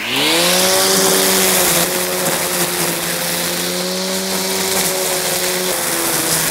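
Cordless string trimmer with a head-mounted electric motor spinning up with a rising whine, then running at a steady whine while its nylon line hisses through thick, overgrown weeds. The pitch sags a little near the end under the load, and the operator feels it lacking power in dense grass.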